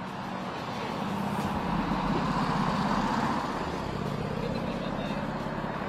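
Road traffic: a motor vehicle's engine hum and road noise swell as it passes, loudest between about one and three seconds in, then easing back to steady traffic noise.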